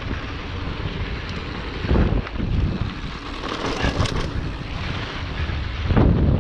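Mountain bike rolling fast down a dirt and gravel trail: wind rushing over the microphone, with the tyres and frame rumbling and rattling over the rough ground. Louder jolts come about two seconds in and near the end.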